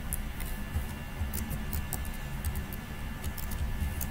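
Computer keyboard keys clicking in quick, irregular runs of typing, over a low steady hum.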